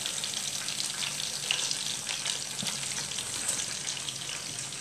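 Hot oil sizzling steadily around battered, stuffed mussels deep-frying in a pan, with many small crackling pops.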